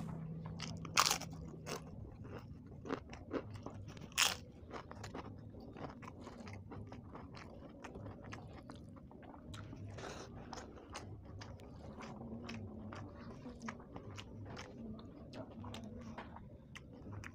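Close-up eating sounds: crunching bites of crisp fried papad with rice and curry, the two loudest crunches about one and four seconds in, followed by steady chewing with many small crackles.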